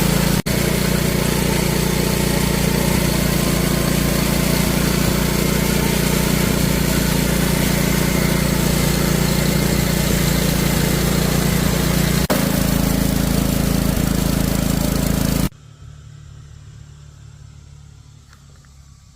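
Wood-Mizer portable band sawmill running steadily while milling cedar, its engine drone mixed with blade noise. There are two brief dropouts, and about three-quarters of the way through it cuts off suddenly to a much quieter background.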